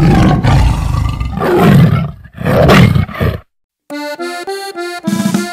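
Recorded roar of a big cat in long, rough bursts lasting about three and a half seconds. A brief silence follows, then an accordion starts a quick run of short, separate notes opening a norteño song.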